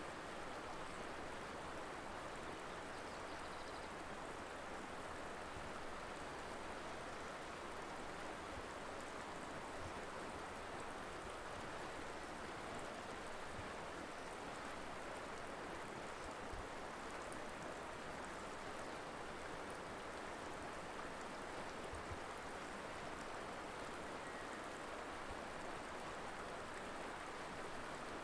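Colorado River flowing over rocks: a steady, even rushing of water that does not change.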